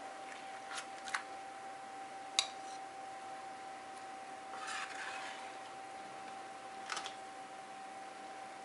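A few light clicks and a short scrape of a metal spatula against a baking tray as a portion of fish and potatoes is lifted onto a plate, over a faint steady hum.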